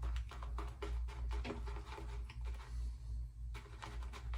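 Shaving brush whipping soap into a lather in a shaving bowl: quick, irregular swishing strokes over a low, steady hum.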